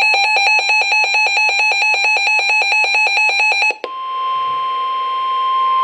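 Rapid electronic beeping, about eight pulses a second, for nearly four seconds. It breaks off and gives way to a single steady alert tone, the NOAA Weather Radio 1050 Hz warning alarm, which signals that a warning broadcast follows.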